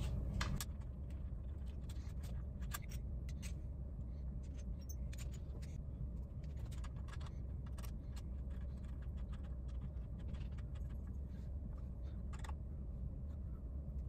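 Faint, scattered clicks and light metallic scrapes of a bolt being fitted and turned with an Allen key in a motorcycle's aluminium handlebar clamp, over a steady low hum.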